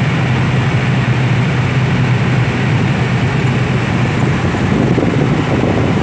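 Steady road noise of a moving car heard from inside the cabin: engine hum and tyre and wind noise, even throughout.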